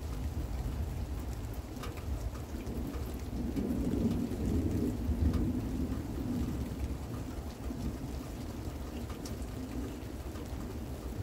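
Thunder rumbling through a steady rain, the rumble swelling about three seconds in and easing off a few seconds later, with scattered raindrops ticking close by.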